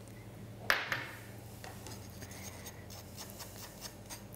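Metal spoon rubbing and scraping purple colouring through a small metal mesh sieve, with one sharp tap under a second in and then a run of light scratchy ticks.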